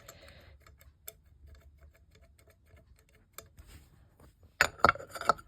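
Light, irregular metallic clicking and ticking as an Edwards fire alarm bell's parts are handled. Near the end there is a louder burst of clattering and tapping with a brief metallic ring.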